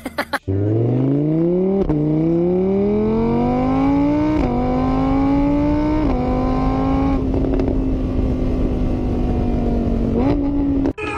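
Car engine accelerating up through the gears: its pitch climbs, drops back at each of three gear changes, then holds steady before a short last rise, and cuts off suddenly near the end.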